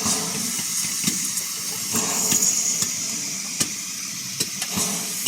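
Steam locomotive Eddystone, a rebuilt Bulleid West Country class Pacific, hissing steam steadily while it is turned on the turntable, with scattered light clicks and knocks.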